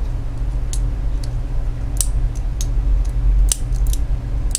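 Button-lock folding knife with a 14C28N blade and Micarta handle being flicked open and closed by hand, giving a series of sharp metallic clicks at uneven intervals as the blade swings and the lock engages. A steady low hum runs underneath.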